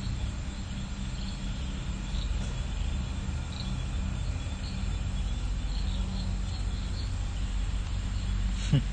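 Insects chirping in short, irregular chirps over a steady low hum. A brief louder sound, falling in pitch, comes near the end.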